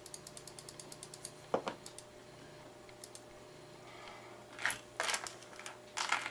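A computer mouse's scroll wheel clicking rapidly, about eight or nine clicks a second, for the first second or so, then a single knock and a few louder rustling, scraping sounds of a small DC motor being handled on a cutting mat near the end, over a faint steady hum.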